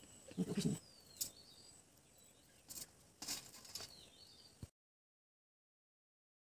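Faint clicks of green cardamom pods being split open by hand over a steel plate, with a few bird chirps in the background. The sound drops to dead silence about two-thirds of the way through.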